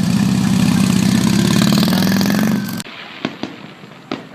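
A loud, steady mechanical drone of fast, even pulses that cuts off abruptly about three seconds in, followed by three sharp firecracker pops.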